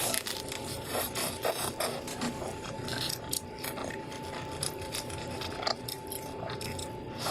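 Irregular crunching and crackling of crispy fried chicken being bitten and chewed, with sharp clicks scattered through it.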